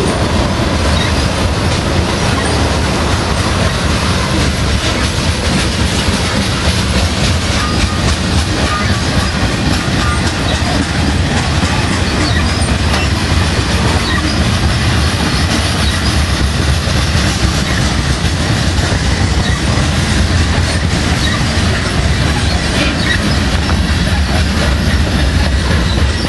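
Freight train of tank cars and covered hoppers rolling past at close range: steady, loud noise of steel wheels on the rails, heaviest in the low end and unbroken throughout.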